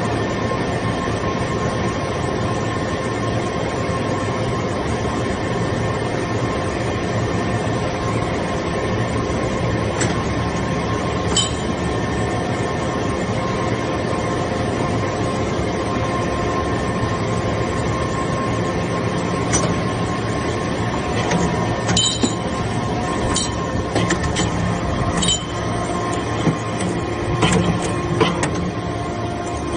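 Hydraulic briquetting press's power unit running, a steady machine hum from the pump and motor with a few faint held tones. Short metallic clinks come in now and then, several close together in the last third.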